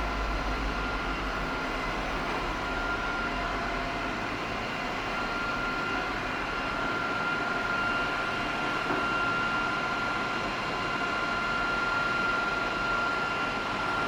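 Xiaomi Robot Vacuum E10's suction fan running steadily: an even rushing noise with a thin steady whine on top.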